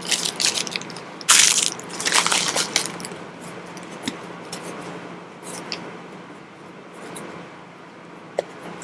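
Crinkling and rustling of packaging being handled, with a loud crinkle about a second and a half in, then quieter scattered clicks and taps.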